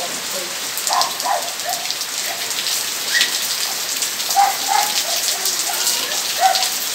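Steady rain falling on leaves and a bare dirt yard: an even hiss made of countless small drop impacts.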